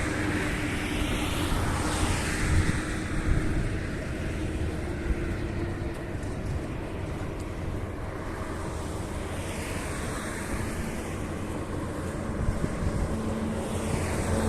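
Street traffic: motor vehicles passing by, their engine and tyre noise swelling and fading, with one pass near the start and another about ten seconds in.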